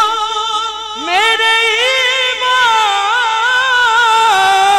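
A man singing a hamd (Urdu devotional hymn) into a microphone, holding long notes with a wavering vibrato. One held note ends about a second in and a new phrase begins with a rising slide.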